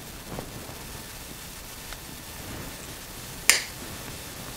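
A single sharp click about three and a half seconds in, with a couple of fainter ticks before it, from hands working with a wooden toothpick and a pair of pliers, over quiet room tone.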